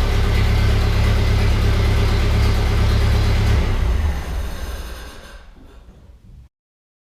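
Ford Model A's four-cylinder engine running steadily, then dying away over about three seconds before the sound stops abruptly.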